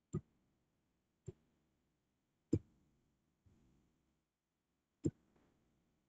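Four sharp, short clicks or taps at uneven intervals: three about a second apart, then a longer gap before the fourth. A softer, brief rustle comes between the third and fourth.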